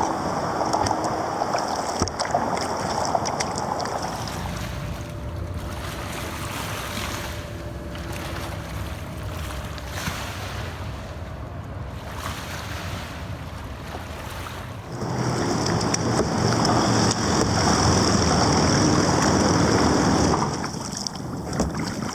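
Wind buffeting the microphone on open water while paddling a kayak into the wind, with the rush of water. It grows louder about fifteen seconds in, then eases near the end.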